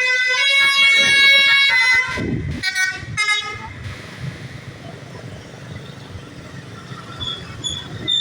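Bus's basuri telolet multi-tone air horn playing a melody of changing notes for about two seconds, then two short blasts a little after, giving way to the low rumble of road traffic.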